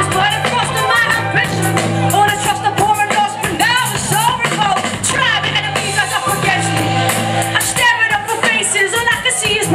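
Live band music with drums, a heavy bass line and a singing voice.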